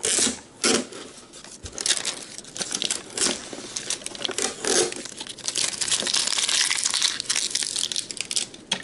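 Clear plastic tear strip being pulled off around a GoPro retail box, crinkling and tearing in a run of sharp crackles and rustles, busiest in the second half.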